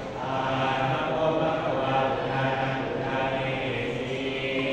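Group of Thai Buddhist monks chanting in unison on a steady low monotone, the chant of an amulet consecration (pluk sek) rite.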